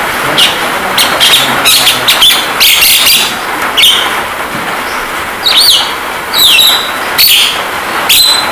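Javan myna calling: a quick run of harsh chirps in the first half, then several curving, swooping whistles in the second, over a steady hiss of rain.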